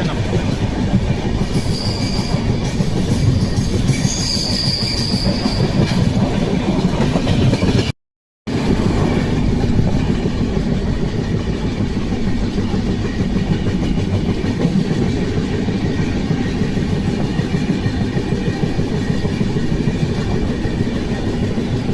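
Indian passenger train running, heard from on board: a steady low rumble of the wheels on the track, with a couple of short high squeals about two and four seconds in. The sound cuts out completely for half a second about eight seconds in.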